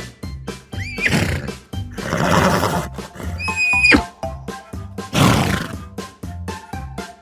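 Horse neighing: several rough calls and one high whinny about halfway through that drops sharply at its end. Background music with a steady beat plays underneath.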